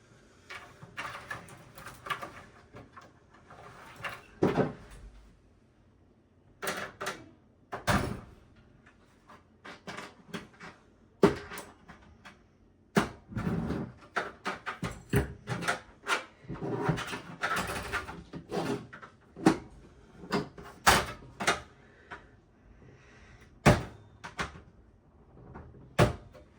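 Irregular clicks, knocks and clatter of hands working on a desktop PC case: handling parts and pulling cables and connectors during disassembly.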